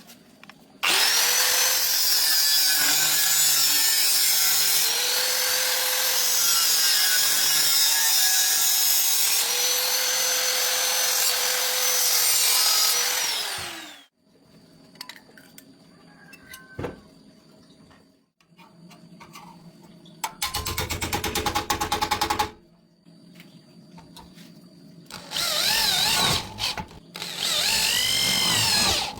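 Handheld electric power tool motor running for about thirteen seconds, its pitch dipping slightly as it works, then winding down. Two shorter runs follow: a brief buzzing one, then a longer one near the end whose pitch rises and falls.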